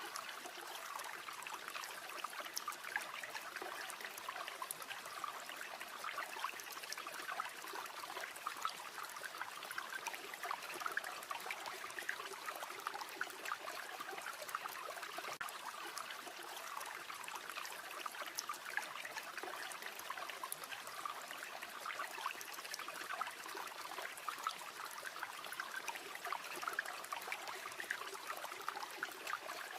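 River water flowing steadily, mixed with the light, frequent crackle of a campfire.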